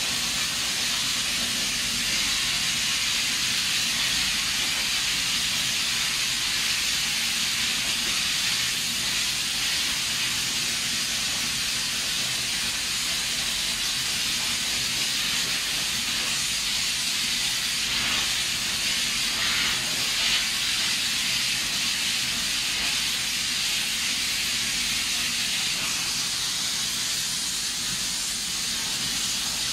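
Steady hiss of air rushing through a long cleaning lance on a hose as a powder-coating booth is blown down for a colour change.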